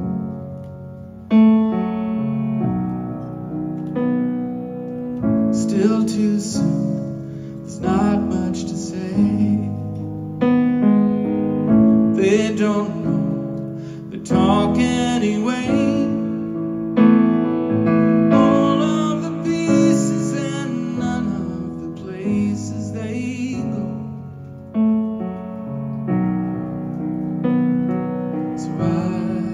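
Yamaha grand piano played live, a song accompaniment of sustained chords, with a few strongly struck chords standing out.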